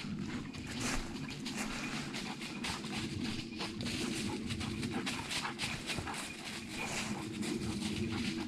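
Irregular rustling and crackling of dry leaves and twigs, steps pushing through woodland undergrowth.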